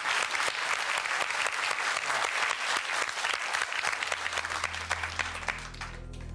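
Studio audience applauding, a dense patter of many hands clapping that dies away suddenly near the end as a low, steady music note comes in.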